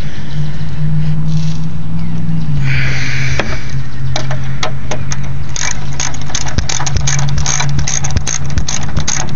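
Ratchet wrench clicking in quick runs as a bolt on the headlight ballast bracket is turned, starting about four seconds in, over a steady low hum.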